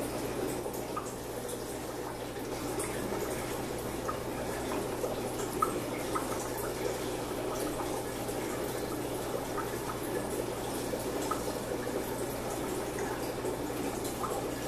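Aquarium water trickling and bubbling with scattered small drips, over a low steady hum from the tank's equipment. One sharper tick comes about five and a half seconds in.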